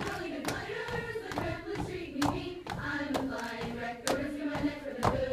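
Girls singing a song together, with sharp stamping steps keeping a beat about twice a second.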